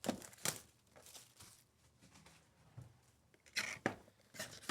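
Plastic wrapping being torn and crinkled as trading card boxes and packs are ripped open: sharp tearing bursts at the start and again about three and a half seconds in, with softer rustling between.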